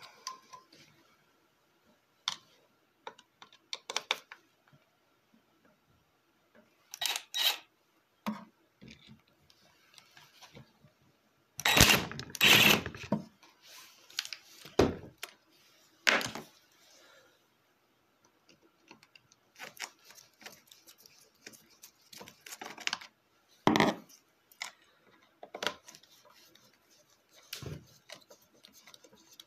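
Scattered clicks, knocks and scrapes of hand tools and small metal parts being handled at a motorcycle engine. A cluster of louder knocks comes about twelve seconds in.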